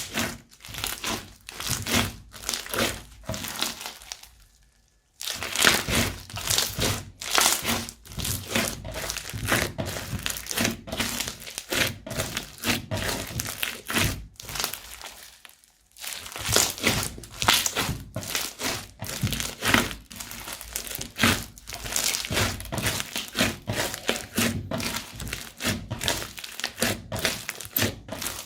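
Crunchy slime being squished, giving a dense run of crackles and pops. It breaks off twice, for about a second each time, about four seconds in and again near the middle.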